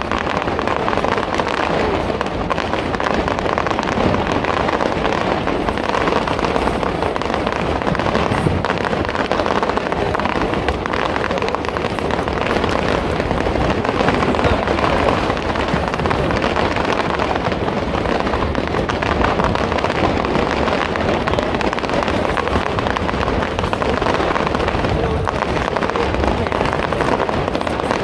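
Fireworks bursting and crackling without let-up, a dense stream of small cracks and pops, with crowd voices underneath.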